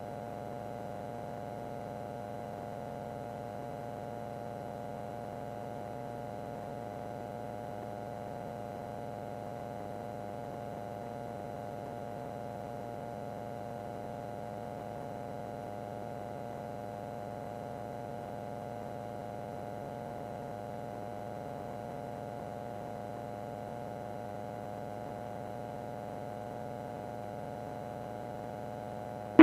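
Steady, even drone of a light aircraft's piston engine and propeller in flight, heard as a hum made of several steady tones with no change in pitch.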